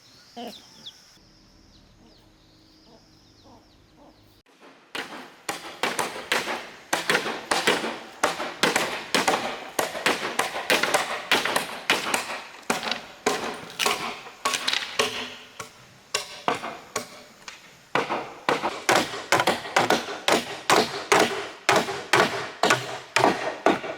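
A few seconds of quiet with faint bird chirps, then from about five seconds in, rapid repeated knocks or chopping blows, several a second, keeping on without a break.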